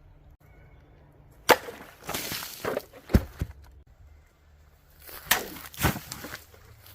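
Bone Tactical Space Cowboy machete chopping: four sharp strikes, with crunching and breaking noise between them.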